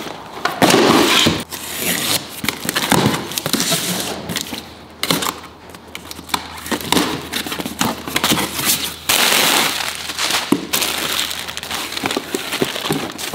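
Plastic packaging and a cardboard box rustling and crinkling in irregular bursts as parts are unpacked by hand.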